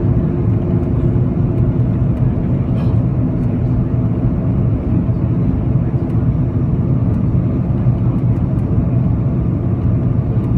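Steady cabin drone of an Airbus A330-200 airliner on descent to land, engines and airflow heard from a window seat beside the wing. It is a constant low rumble with a faint hum in it.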